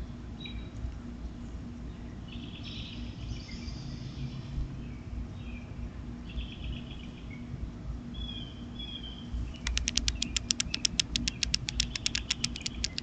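Birds chirping in short, scattered phrases over a steady low hum. About two-thirds of the way through, a fast, even run of sharp clicks starts, about nine a second, louder than the chirps.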